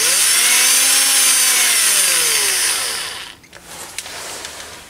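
Cordless drill running free, its motor speeding up quickly as the variable-speed trigger is squeezed and then winding down slowly over a couple of seconds as the trigger is eased off. A light click follows about four seconds in.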